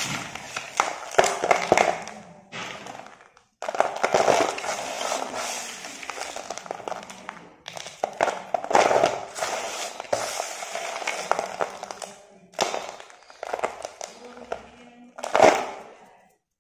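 Broken slate pencil pieces and powder crunching, rattling and rustling as a hand rakes and scoops through them in a plastic bowl, a dense gritty crackle that stops briefly twice, with a louder crunch near the end.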